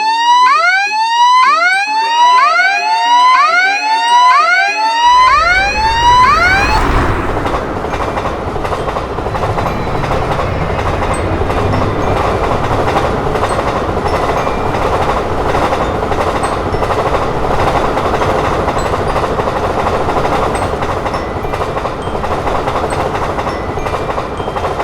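Level-crossing warning signal sounding as a repeating rising electronic whoop, about one sweep a second, for the first seven seconds. Then a train passes with a steady, even noise of wheels on rails that lasts until just before the end.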